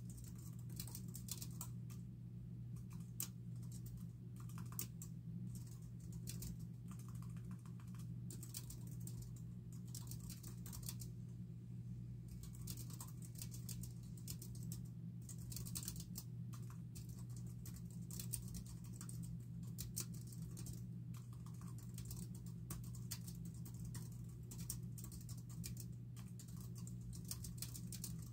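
Typing on a computer keyboard: runs of quick key clicks coming in irregular bursts with short pauses, over a steady low hum.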